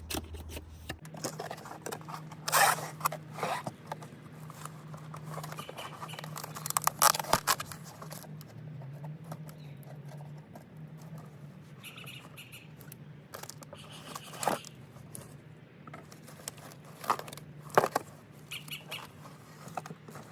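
New car-audio speakers being taken out and handled: scattered scrapes, clicks and rustles of packaging and parts being moved. A faint steady low hum runs underneath.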